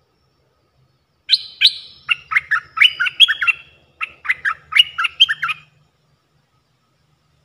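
A stripe-throated bulbul sings two quick phrases of loud, short whistled notes, the first starting about a second in and the second at about four seconds.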